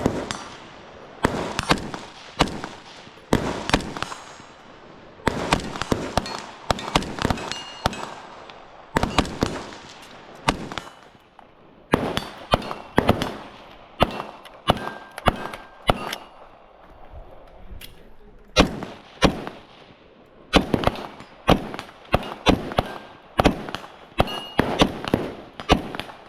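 Airsoft guns firing a long, irregular string of sharp shots, often two or three in quick succession, with brief pauses between strings. Some shots are followed by a short metallic ring.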